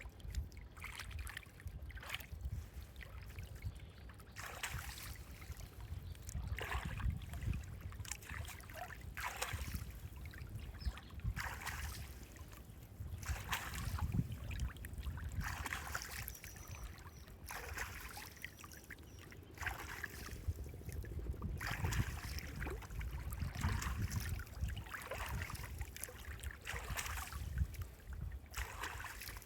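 Water sloshing and splashing in irregular surges every second or two, over a steady low rumble.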